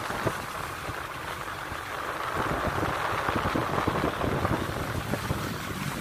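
Car driving over a rough road, heard from inside: a steady rumble and road hiss with scattered knocks and bumps.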